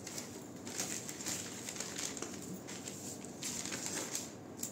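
Newspaper rustling and crinkling as a cut paper pattern is lifted and folded by hand, in a few separate bursts.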